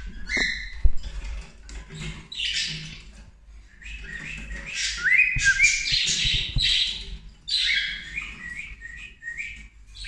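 Male cockatiel singing: a run of short rising whistles mixed with harsh chirps. This is the song a cock bird gives at the nest box to draw the hen into the nest.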